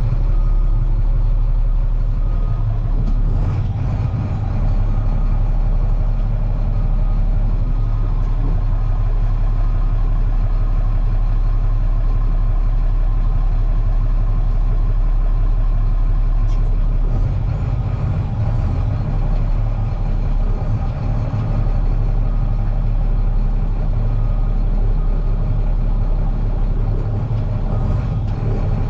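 Heavy diesel engine running steadily at low speed, a loud, even low hum that eases slightly a little past halfway.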